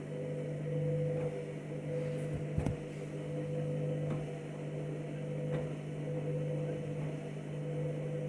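Candy washing machine running at the start of its anti-odour cycle: a steady motor hum with a few light knocks, the clearest about two and a half seconds in.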